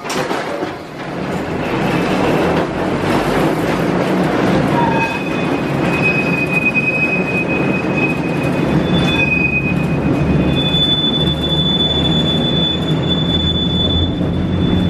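1904 Brill-built Baltimore streetcar No. 4533 running along its track, heard from inside the car as a steady rumble of wheels on rail, with a sharp knock right at the start. From about five seconds in, the wheels squeal in a thin, high, steady tone, which moves to a higher squeal from about nine seconds on.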